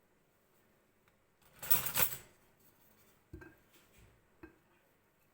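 Kitchen handling sounds: a short rustling scrape about one and a half seconds in, then three light knocks of a spoon against a dish.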